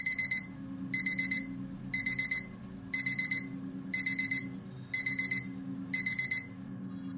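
Electronic alarm beeping in quick groups of four, one group a second, seven times, over a steady low hum.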